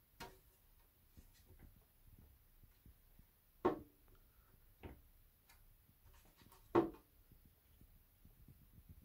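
A few short knocks and clicks of hard parts being handled: two louder knocks, about three and a half and seven seconds in, and a few fainter clicks around them.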